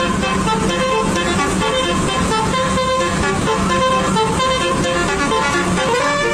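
A bus's basuri musical horn playing a tune of quick stepping notes over a steady low drone.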